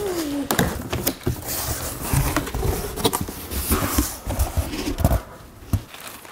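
Cardboard box being torn open and brown packing paper crumpled and pulled out: irregular rustling, scraping and dull knocks of the cardboard. A brief excited voice exclamation right at the start.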